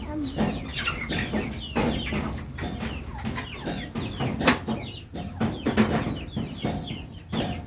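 A flock of chickens clucking, many short calls overlapping, with a few sharp knocks among them, the loudest about halfway through.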